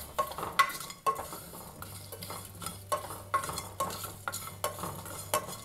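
A cooking utensil stirring and scraping against a pan, with irregular knocks and scrapes several times a second and a light sizzle, as whole small onions are sautéed with roasting spices.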